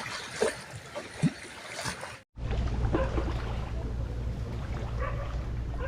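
Strong wind buffeting the microphone over river waves splashing. After a sudden break about two seconds in, the wind becomes a steady heavy low rumble.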